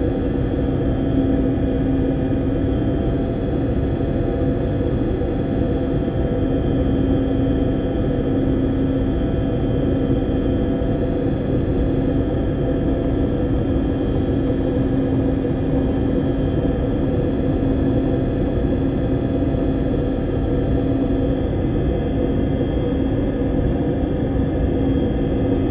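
Steady drone of an airliner cabin in flight: engine and airflow noise with a constant low hum, unchanging throughout.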